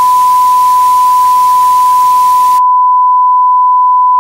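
Television test-pattern tone: one steady, loud, high beep at a single unchanging pitch. A faint hiss beneath it cuts out a little past halfway, leaving the tone alone.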